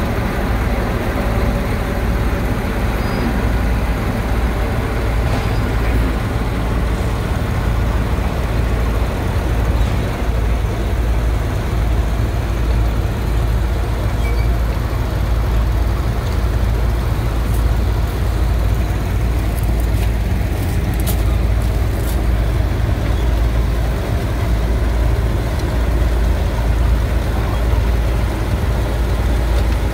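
Vintage tractor engine running steadily with a heavy low rumble, its pitched note clearest in the first few seconds. A few light clicks come about 18 to 22 seconds in.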